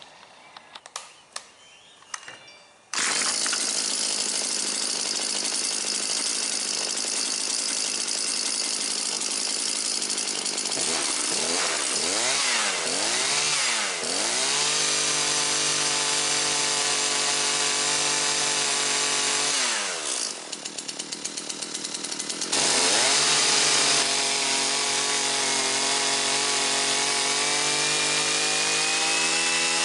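Husqvarna 325P4 pole saw's two-stroke engine running after a few clicks: revved up and down several times, held at high speed, dropped briefly, then held at high speed again. It runs evenly, with no ignition miss, after the spark plug wire that had rubbed through on the flywheel was taped.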